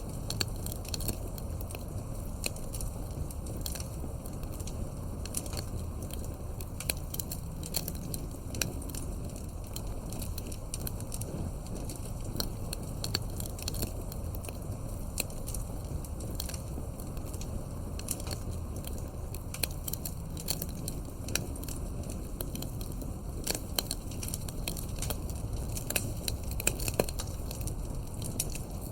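Wood fire crackling: irregular sharp pops and snaps scattered over a steady low rumble of burning.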